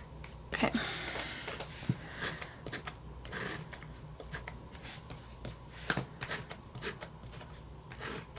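Paper planner pages and small stationery supplies being handled: soft paper rustling with scattered light clicks and taps, the sharpest about two seconds in and about six seconds in.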